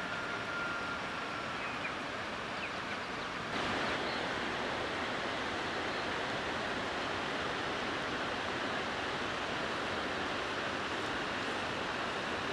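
Steady rushing outdoor noise with no distinct source, with a few faint thin whistles in the first two seconds. The noise gets slightly louder about three and a half seconds in.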